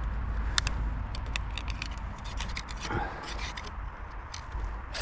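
Handling noise: a scatter of small sharp clicks and scrapes over a steady low rumble.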